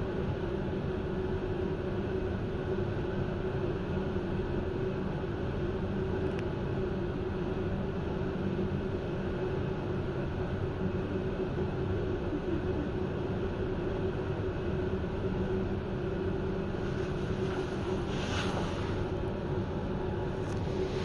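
Steady hum of a standing Intercity passenger train heard from its rear end, with a constant low tone underneath. A short burst of higher hiss comes near the end.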